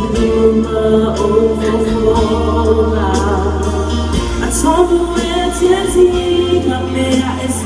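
Gospel music: voices singing a slow song over a steady low bass accompaniment.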